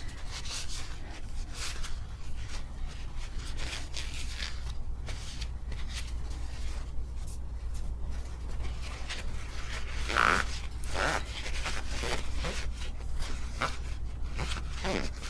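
Cloth shop towel rubbing and scrubbing on the removed metal hand wheel of a White 173 sewing machine to clean off dirt: a steady run of short rubs and scrapes, with one louder stroke about ten seconds in.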